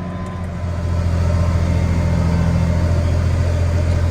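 Case IH 8940 tractor's diesel engine running steadily under load, a low drone that grows louder about half a second in and then holds.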